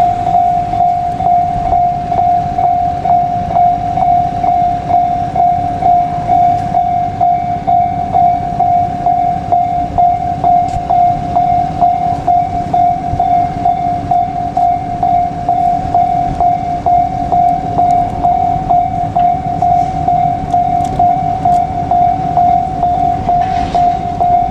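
Japanese railway level-crossing warning bell ringing steadily in quick, even strokes on one pitch, about two to three a second, over a continuous low rumble.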